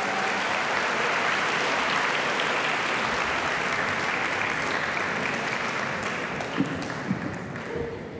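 Audience applauding steadily, slowly dying away near the end, with a few sharp knocks near the end.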